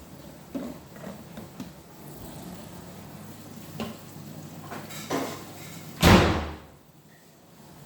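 A few light knocks and clatters of things being handled, then one loud thump about six seconds in that dies away over about half a second.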